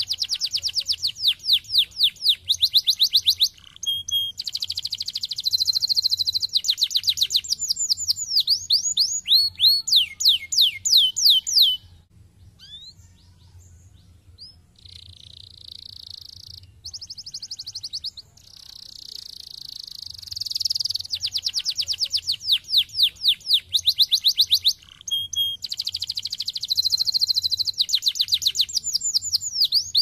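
Domestic canary singing: long fast trills of rapidly repeated falling whistled notes, some phrases slowing to a few longer downward sweeps a second. There is a quieter break of a few seconds near the middle before the song resumes.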